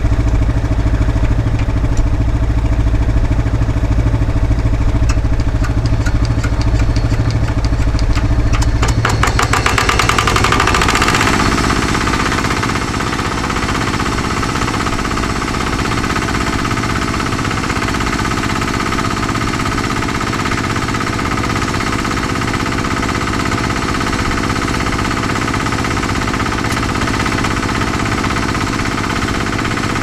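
Petrol engine of a portable irrigation water pump running steadily. About ten seconds in its note shifts, with its pitch moving up, and then it settles into a steady run again.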